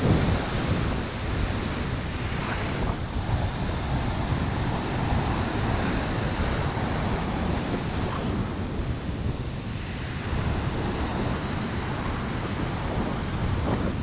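Shore-break surf washing up and back over the sand, with wind buffeting the microphone.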